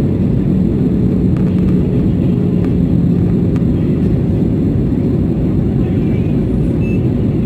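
Steady jet engine and airflow noise heard inside the passenger cabin of an Airbus A319 airliner during its descent, a deep even rumble with a faint hum.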